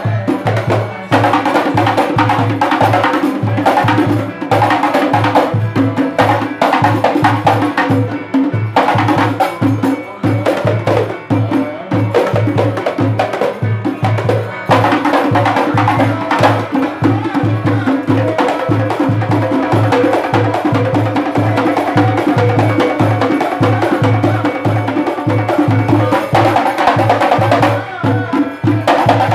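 Hadrah ensemble of frame drums (rebana) beaten in a steady, even rhythm, with a lead singer chanting through a microphone over the drumming.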